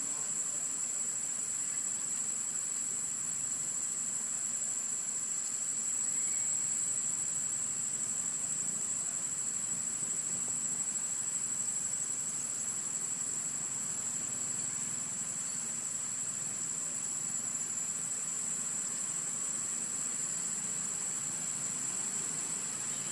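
Steady, high-pitched insect drone with a low background rumble.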